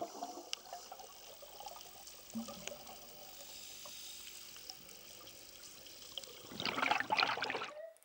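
Underwater ambience with faint crackling clicks, then a rush of scuba regulator exhaust bubbles lasting about a second near the end.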